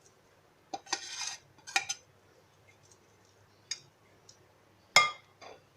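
A spoon clinking and scraping against a bowl as chopped vegetables are added to the chickpea chaat: a few sharp clicks, a short scrape about a second in, and the loudest clink near the end.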